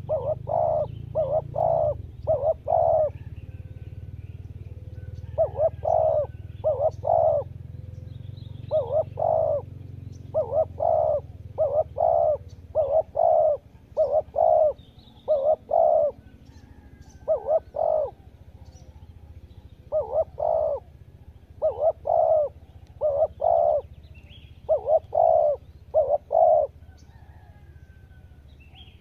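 Spotted dove cooing in repeated phrases of three or four low notes, one phrase every second or two. Faint chirps of small birds come through between the phrases, over a low steady rumble.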